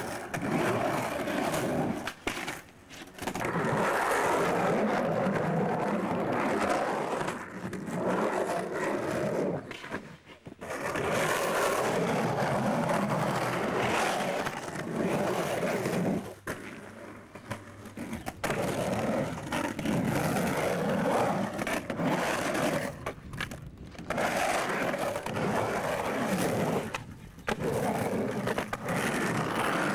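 Polyurethane skateboard wheels rolling over a concrete bowl in long runs, broken by short pauses, with occasional knocks of the board.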